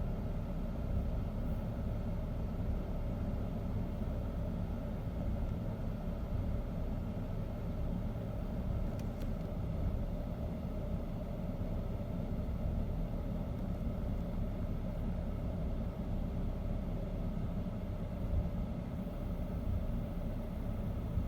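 A 2008 BMW 528xi's 3.0-litre inline-six idling steadily with a low running sound. The idle is rough, the sign of a running fault the owner is documenting.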